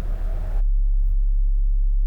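A deep, steady low rumble. About half a second in, the hiss above it cuts off sharply, leaving only the low drone.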